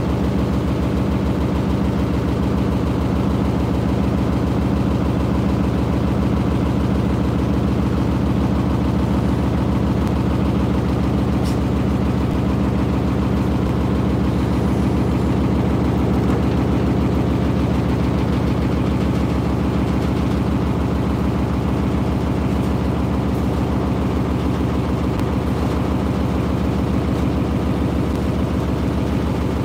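Beko washing machine on a fast spin, smashing: the drum knocks rapidly and steadily against the cabinet over the steady hum of the motor.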